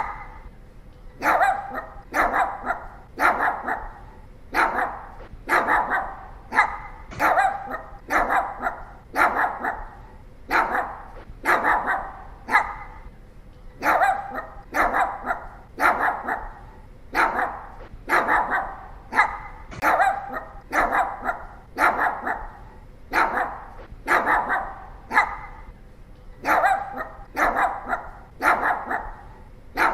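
Pomeranian barking over and over: short, high-pitched yaps about once a second, often in quick pairs.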